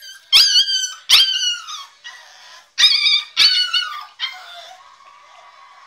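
American Staffordshire terrier puppy screaming: four loud, high-pitched yelps in two pairs, then a thinner, quieter steady whine. It is crying to be let out of its crate.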